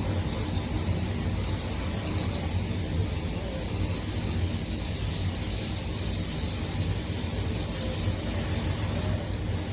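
Strong wind blowing steadily: a low rumble under a broad hiss, with faint whistling now and then.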